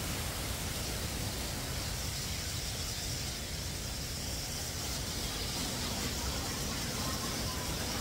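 Steady rushing noise of a waterfall, with a low rumble underneath.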